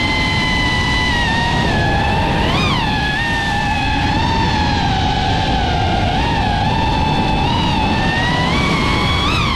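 Racing quadcopter's motors and propellers whining at a high, steady pitch. The pitch jumps briefly about two and a half seconds in and again near the end, over a low rushing noise.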